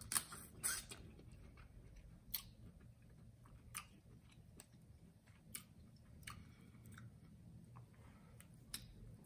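A person chewing lobster meat in spicy sauce close to the microphone, with sharp clicks every second or so, the loudest near the start.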